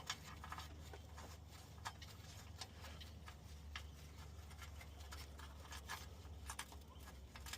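Faint, scattered small clicks and ticks of transmission oil pan bolts being handled and started by hand into the pan, over a low steady hum.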